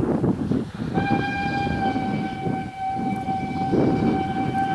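Ol12-7 steam locomotive working hard with rhythmic exhaust beats, its steam whistle sounding one long steady blast that starts about a second in.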